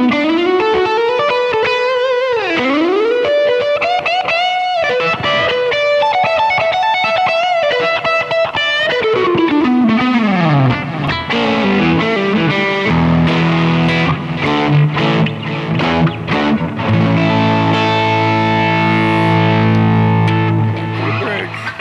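Les Paul Custom electric guitar through an amp with a slightly overdriven crunch tone, playing single-note lead lines with bends and slides, then strummed, ringing chords from about halfway through.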